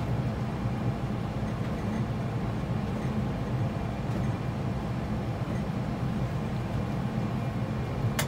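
Steady low rumble of simulated engine and airflow noise in an Airbus A320 flight simulator's cockpit on final approach, with gear down and flaps full. A short click sounds near the end.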